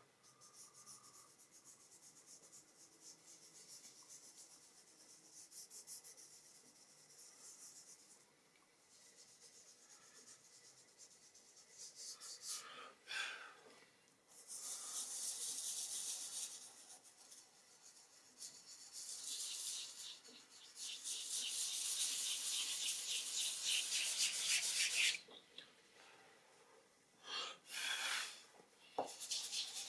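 Hands rubbing and blending dry soft pastel into thin drawing paper: a soft, scratchy hiss of quick strokes that comes in stretches, faint at first and loudest through the second half, with a few short louder bursts near the end.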